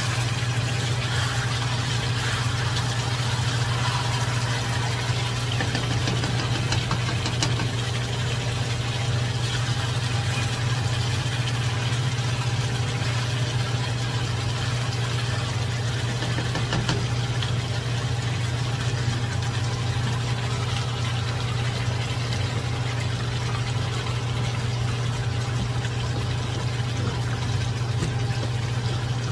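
A steady low hum throughout, under the hiss of chicken adobo sizzling in a wok as its sauce cooks down, with a few faint scrapes of a spatula stirring the pieces.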